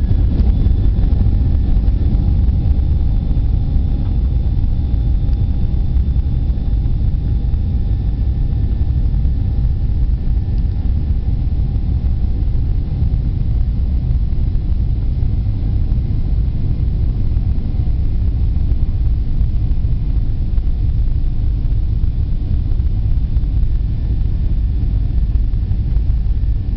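Steady low rumble of a jet airliner's engines and airflow, heard from inside the passenger cabin during takeoff, with faint steady engine whines that fade out about halfway through.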